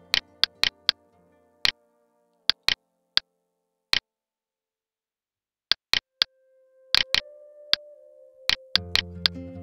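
Computer mouse clicking, sharp single and paired clicks about every half second to second, as wires are placed in a schematic editor. Quiet background music fades out, comes back as a held note, and swells again near the end.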